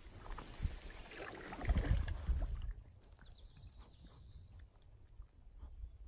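Canoe moving on calm water: water swishing along the hull with a low rumble on the microphone, loudest about two seconds in. It cuts off suddenly a little later, leaving a much quieter background with a faint high whistle falling in pitch and a few light knocks.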